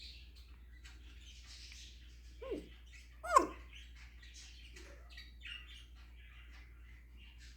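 African grey parrot giving two short calls that fall in pitch, a little under a second apart, a few seconds in; the second is louder. Faint scratchy sounds come and go around them.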